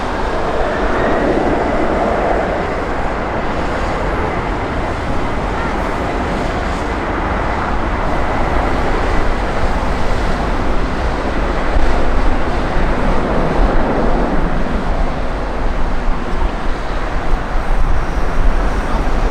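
Jet engine noise from a McDonnell Douglas MD-11 trijet freighter: a loud, steady rumble with a faint high whine over the first half.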